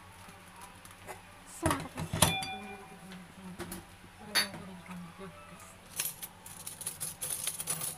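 Metal kitchenware clinking: a few sharp clinks about two seconds in, one leaving a short ring, another around four seconds in, then a quicker run of light clicks and taps near the end.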